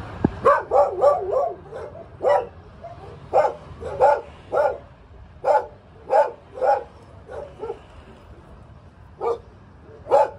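Puppies barking and yipping as they play, short high-pitched barks. A quick run comes at first, then single barks every half second to a second, then a pause of over a second before a last pair near the end.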